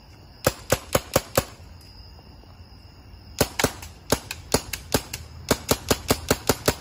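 Paintball marker firing semi-automatic: a quick string of five sharp pops, a pause of about two seconds, then a longer rapid string of pops, about five a second.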